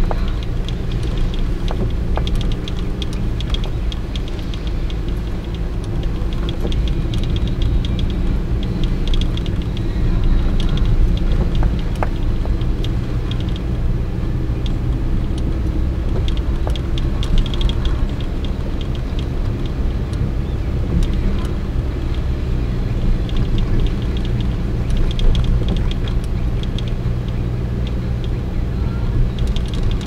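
Steady low drone of a car's engine and tyres on a wet road, heard from inside the cabin, with scattered bursts of light ticking.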